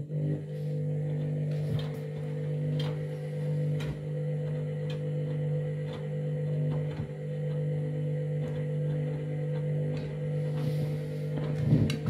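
Candy front-loading washing machine's drum motor running with a steady hum, turning a load of bedding through water in the drum. Faint clicks come about once a second, and a few knocks come near the end.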